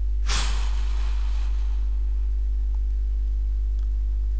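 A single rush of breath against a close headset microphone, starting about a quarter-second in and fading over about a second, over a steady low electrical hum.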